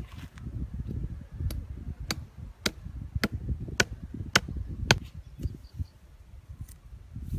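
Machete striking a wooden stake, seven sharp knocks about every half second, stopping about five seconds in.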